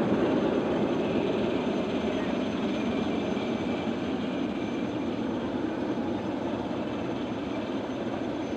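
Formation of nine BAE Hawk T1 jet trainers, each with a single Adour turbofan, flying past as one steady jet rumble that slowly fades as the formation draws away.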